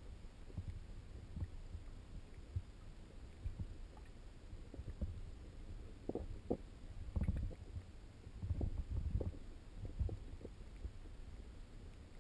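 Muffled, irregular low rumbles and thumps of water moving around a GoPro HD Hero2 in its sealed underwater housing, with a few sharper knocks. The thumps come thicker and louder past the middle.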